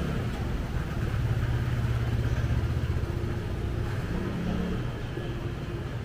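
A motor vehicle's engine running close by, swelling to its loudest about two seconds in and then easing off, over general street noise.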